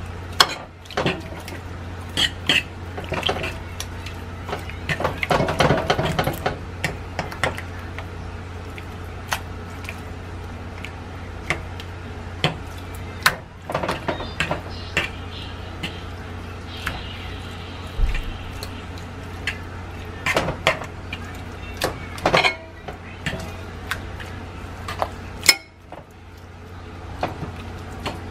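A metal fork clinking, knocking and scraping against a frying pan and pot as seasoned steaks are moved around, in scattered irregular strokes over a steady low hum.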